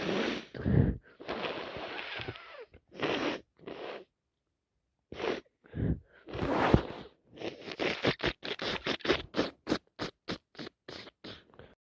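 A person with a heavy cold blowing her nose into a tissue: several long, wet blows, then a quick run of short puffs, about five a second, over the last few seconds.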